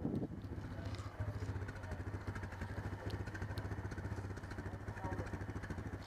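ATV engine idling steadily, a fast even chug.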